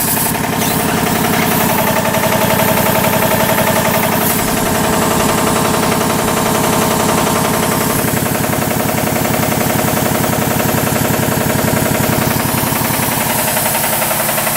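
Kellogg 462 air compressor running steadily with a fast, even knocking: rod knock from worn connecting rod bearings, three of its four rods.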